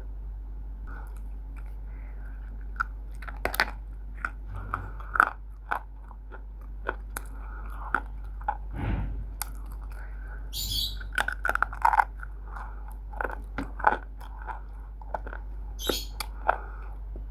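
Someone biting and chewing pieces of roasted multani mitti (fuller's earth clay), heard as irregular sharp crunches and crackles.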